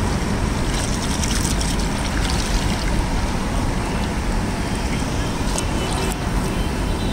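Cooking oil poured in a thin stream from a plastic packet into a large iron kadai, a steady trickling splash, over constant street traffic noise.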